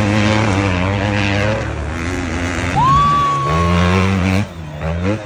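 450cc motocross bike engines running hard past the track edge, their pitch rising and falling with throttle and gear changes, with a drop about four and a half seconds in and a fresh climb in revs right after. About three seconds in, a high steady tone sounds over the engines for about a second.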